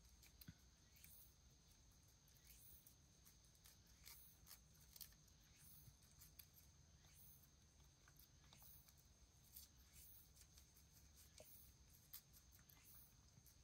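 Domestic cat licking a treat held in a person's fingers: faint, irregular little wet clicks of its tongue, with a faint steady high tone behind.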